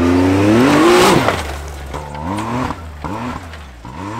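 Can-Am side-by-side UTV engine revving hard from a standing start, its pitch climbing steeply for about a second. It then surges up and down in quick repeated revs, about every half second, as it drives off over rough dirt.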